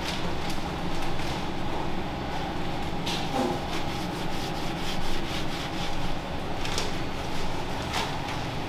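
Steady rumbling background noise of a working restaurant kitchen, with a few brief clicks and clinks now and then.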